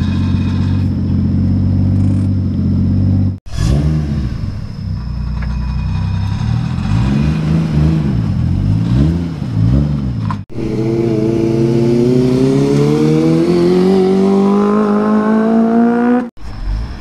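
Toyota Mark II JZX100's straight-six engine: running steadily at first, then blipped several times with quick rises and falls in revs, then a long steady climb in revs. The sound cuts off abruptly between each part.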